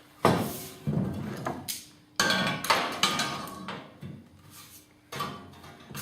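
Metal clanking as a door frame is clamped to the welded steel bottom band with a vise grip: several sharp knocks, each ringing briefly.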